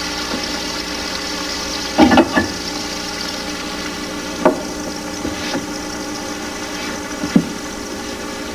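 Veal chops sizzling in oil in a stainless-steel frying pan, a steady hiss broken by a few sharp knocks of pans or utensils, a double one about two seconds in.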